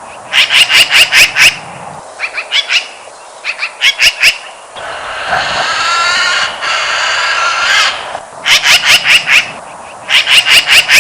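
Magpie calling: several short runs of harsh, rapid chattering notes, about five a second, with a longer unbroken stretch of chatter in the middle.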